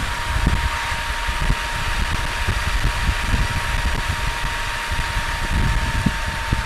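Wind buffeting the microphone over the road noise of a 2018 Can-Am Spyder three-wheeler cruising at road speed, with a thin steady whine underneath.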